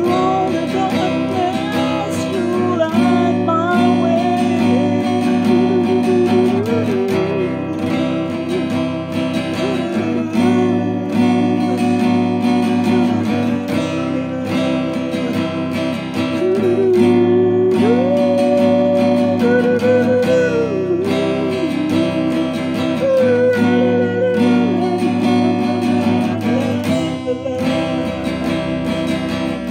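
A man singing to his own strummed acoustic guitar, the chords strummed steadily under the sung melody.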